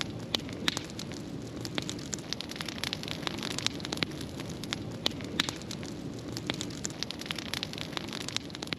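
Brush-pile bonfire of cut tree branches burning, with a steady rush of flames and frequent sharp crackles and pops from the burning wood.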